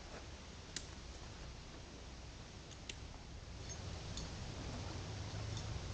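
A few faint light clicks, as of tent poles and fabric being handled while a tent is pitched, over a steady background hiss; a low hum comes in about halfway through.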